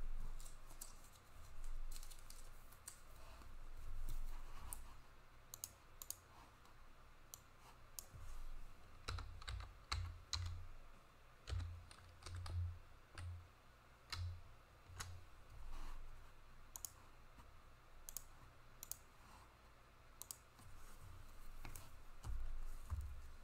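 Trading cards being handled and flipped through one by one: a scatter of soft clicks, taps and card-stock slides, with a few low bumps.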